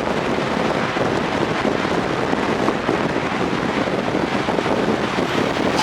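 Steady rush of wind and road noise from a car moving at speed, with no distinct engine note standing out.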